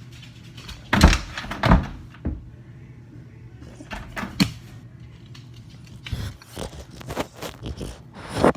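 A series of thumps and knocks in a small room, loudest twice near the start, with a quicker run of lighter knocks near the end.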